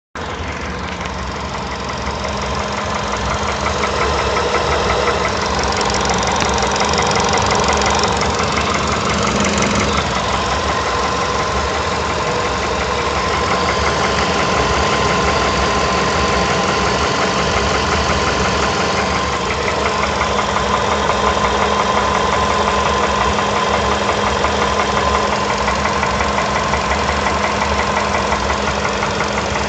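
Volkswagen Polo Sedan engine running steadily with a rapid, even knock, which the owner takes for a knocking piston.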